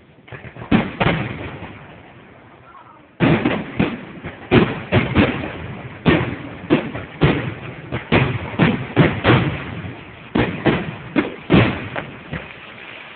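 Fireworks aerial shells bursting with sharp bangs: a few in the first couple of seconds, then from about three seconds in a rapid barrage of two or three bangs a second.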